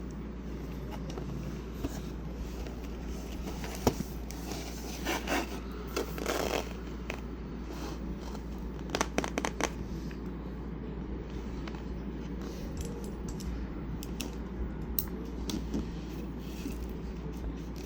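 Packaging being handled: scattered scrapes, rustles and light clicks as a boxed calendar is turned over and touched, with a sharp tick about four seconds in, over a steady low hum.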